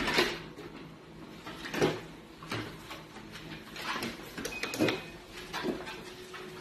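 A small motorized treadmill running with a low hum while a puppy walks on its belt. The puppy's paws and body bump and scuff on the belt and frame in irregular thumps, about six of them.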